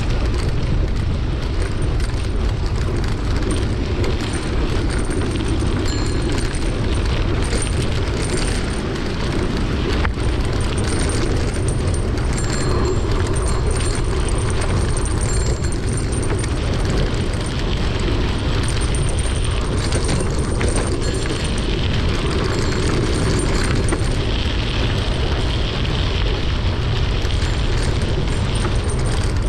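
Wind buffeting the microphone of a camera carried on a moving mountain bike, a steady heavy rumble, mixed with the noise of the tyres rolling over a dirt track and small rattles.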